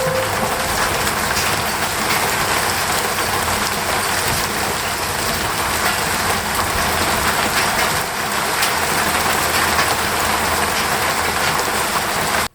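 Steady rain falling, an even hiss with scattered drop ticks, that cuts off suddenly near the end.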